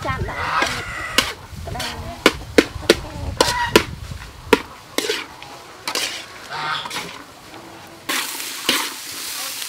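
A metal spatula clanks and scrapes against a wok as cooked rice is stir-fried. A run of sharp knocks comes in the first half, then the knocks grow sparser.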